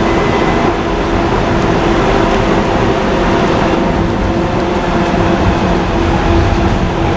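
Docklands Light Railway train running along the track, heard from inside the carriage: a steady rumble of wheels on rails with an even hum from the drive.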